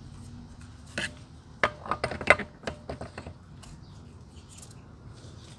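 Metal clinks and taps as a steel clutch bell is fitted onto a GY6 scooter's clutch shaft: a knock about a second in, a quick run of sharp clinks over the next two seconds with the loudest near the middle, then a few faint ticks.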